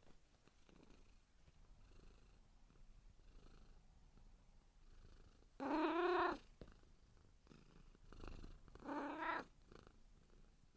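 Domestic cat purring softly, broken by two loud meows, one about halfway through and a shorter one near the end, each arching up and down in pitch: a hungry cat calling.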